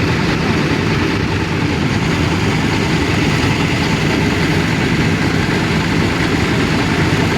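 Heavy engine of road-paving machinery running steadily at a constant speed.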